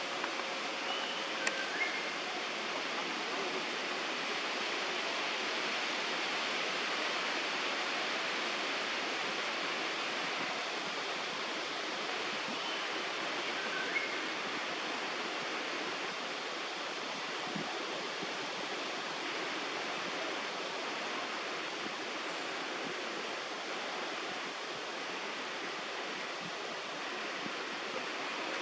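Steady, even outdoor background hiss with a few faint short chirps, twice near the start and once about halfway.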